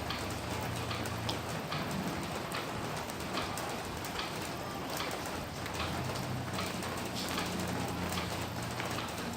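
Steady rain falling, with many individual drops striking close by over an even hiss, and a low steady hum underneath.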